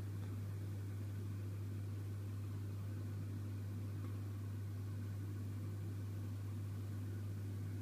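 Steady low rumble inside a moving train carriage, with a constant low hum and no distinct events.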